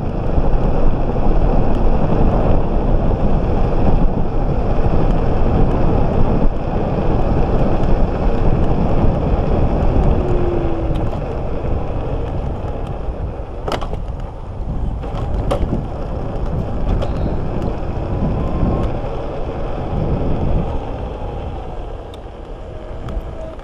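Wind buffeting the microphone and tyre noise of an electric scooter riding fast on asphalt, at about 37–38 km/h. The noise grows quieter in the second half, with two sharp clicks a little past the middle.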